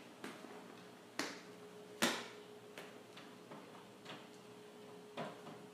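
A few separate sharp knocks and clicks, about six in all and spaced irregularly, the loudest about two seconds in, over a faint steady hum.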